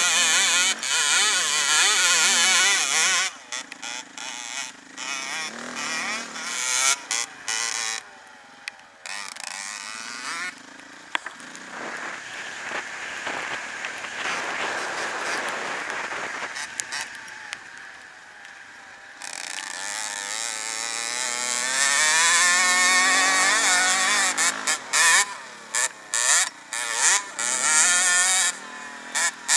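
Off-road motorcycle engine revving up and down as the bike rides a dirt track, with wind on the microphone. The sound cuts out briefly several times.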